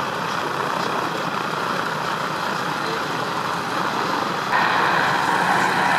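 Radial engine of a Harvard-type trainer aircraft running as the plane taxis, a steady rough drone that grows louder about four and a half seconds in.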